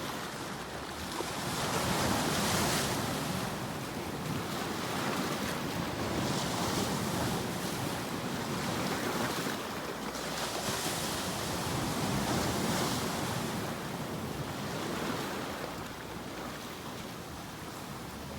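Ocean waves breaking and washing on a shore, the surf rising in several slow swells of hiss and falling back between them.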